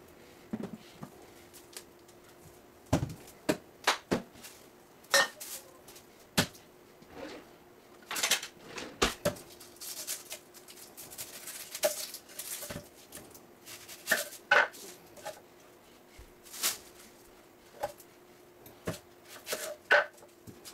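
Irregular knocks, clicks and clatters of food and kitchen utensils being handled on a countertop and wooden cutting board, with a faint steady hum beneath.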